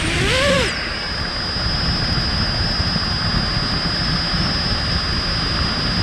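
Small FPV quadcopter's motors and propellers giving a steady high-pitched whine over a low rushing noise, the pitch holding level throughout.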